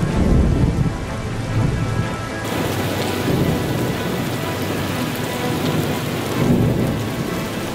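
Heavy rain pouring down on leaves, a steady hiss that grows brighter a couple of seconds in. Deep rolls of thunder rumble under it near the start and again near the end.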